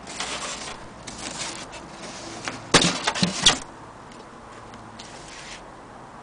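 Cardboard shipping box being handled: short rustling scrapes, with a loudest cluster of sharp knocks and cracks about three seconds in.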